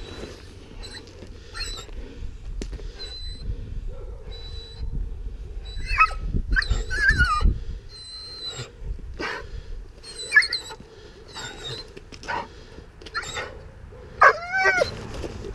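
German shepherd puppy giving short, high whines and yips in scattered bursts while held back on its leash, facing a tug toy; the loudest cries come about six to seven seconds in and again near the end.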